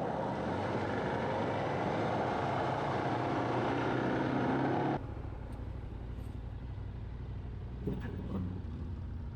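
Motorcycle engine running: a loud, noisy stretch of riding for about five seconds, then a sudden cut to a quieter, steady engine hum.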